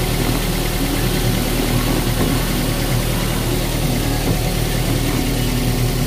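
Daihatsu Gran Max pickup's 1.3-litre four-cylinder engine idling steadily, heard from the cab with the engine bay open beneath the seat. The owner describes its sound as smooth, with no rough noises.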